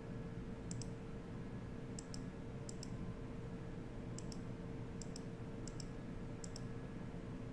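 Computer mouse clicking: about eight short, sharp clicks, each a quick double tick of press and release, spaced irregularly, over a faint steady hum.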